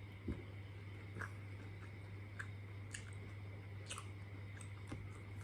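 A person chewing food, with scattered soft mouth clicks, over a steady low hum.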